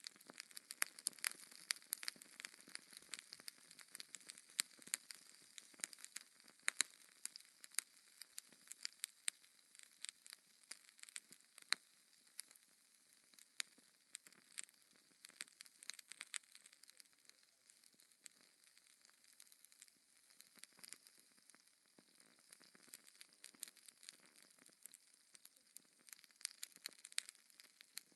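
Wood fire crackling in a fireplace: irregular sharp pops and snaps over a soft hiss.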